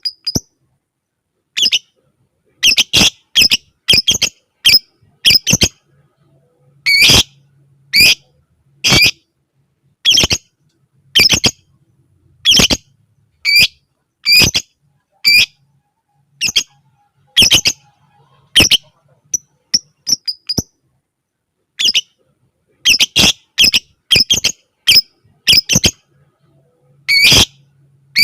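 Lovebird giving short, sharp, high-pitched squawking calls, roughly one a second, with a few brief pauses between runs.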